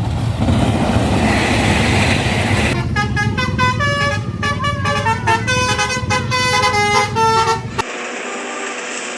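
A bus engine running with a loud noisy rush, then from about three seconds in a Basuri telolet horn playing a quick multi-note tune of stepping pitches for about five seconds, cut off abruptly near the end.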